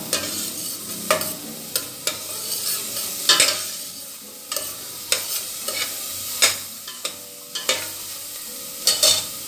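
Diced onion sizzling in olive oil in a stainless steel pot while being sautéed to soften. A long metal spoon stirs it, knocking and scraping against the pot several times.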